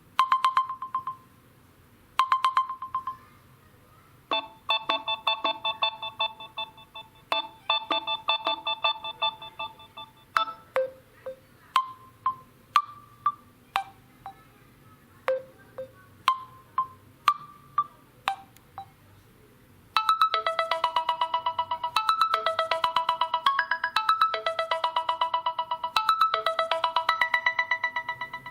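Samsung Galaxy M01 stock ringtones playing: short electronic melodic phrases of chime-like notes. A sparser run of single plucked notes gives way to a louder, denser repeating tune about 20 seconds in.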